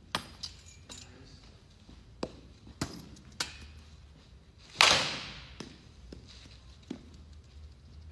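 A bat hits a front-tossed baseball once, a loud sharp crack with a long echo from the hall, a little under five seconds in. It comes after a few lighter clicks and knocks.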